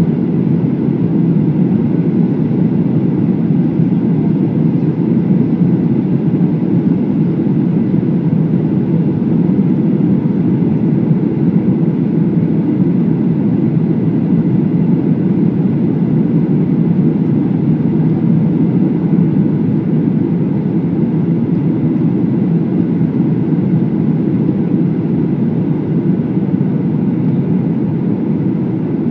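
Steady cabin roar of a Boeing 737-800 on final approach, heard from a window seat over the wing: its CFM56-7B engines and the rush of air over the airframe, with the flaps extended. The roar stays even, deep and low-pitched throughout, with no touchdown yet.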